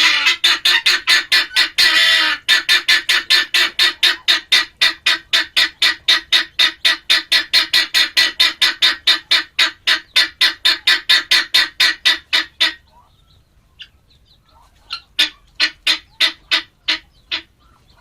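Male guineafowl giving its harsh, rapid chattering call, an even run of about five sharp notes a second. The calls break off about 13 seconds in and pick up again, less evenly, after a pause of about two seconds.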